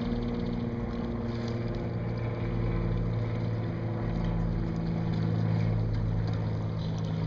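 Boat motor running steadily: a low, even hum with a few steady low tones and some wind on the microphone.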